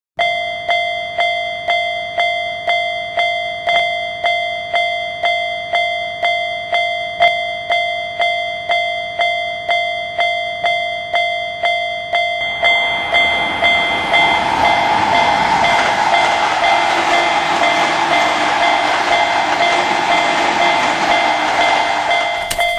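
Railroad crossing warning bell ringing in a rapid, even rhythm, a little over two strikes a second. About halfway through, the rushing noise of a passing train comes in and grows louder beneath the bell, which keeps sounding.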